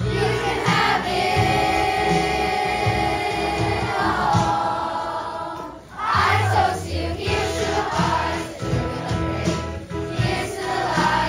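A large group of schoolchildren singing together as a choir. They hold one long note for about three seconds, then briefly pause near the middle before the singing goes on.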